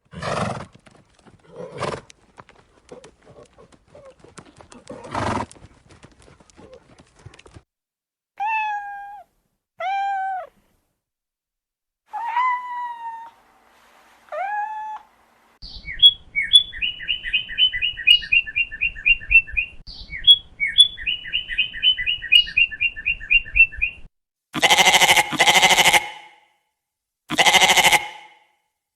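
A run of animal calls: four short pitched cries, then a fast string of high chirps, then three loud bleats near the end, which are the loudest sounds.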